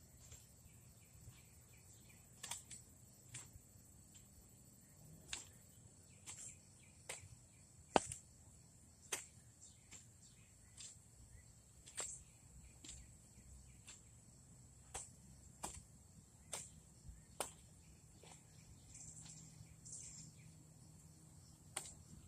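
Garden hoe striking and chopping into soil in irregular strokes, hilling up bean rows, over a steady high chirring of insects.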